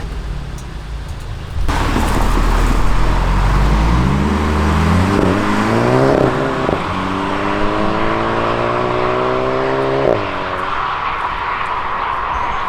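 Volkswagen Golf GTI's turbocharged 2.0-litre four-cylinder pulling hard under acceleration: its pitch climbs through one gear, breaks briefly for an upshift about six seconds in, climbs again through the next gear and drops off sharply at about ten seconds. A steady rush of noise runs under the engine from about two seconds in.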